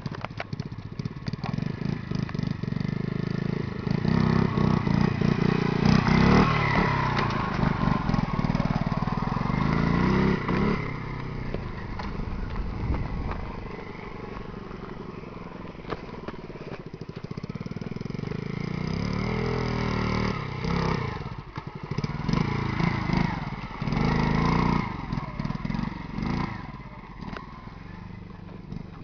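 Honda Monkey 50 minibike's small four-stroke single-cylinder engine running and revving up and down under a changing throttle while ridden off-road. It gets loud twice for several seconds, about a sixth of the way in and again about two-thirds through.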